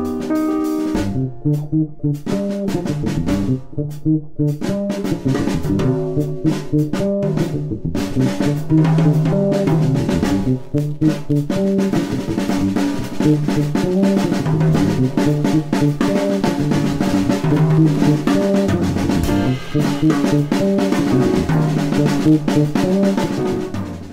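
Background music: a drum kit beat with snare and bass drum under pitched instruments.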